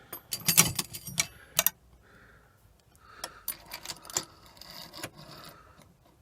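Small metal clock parts clattering and clinking as they are handled and rummaged through on a bench. A burst of sharp clatter comes in the first second and a half, then quieter clicks and rustling.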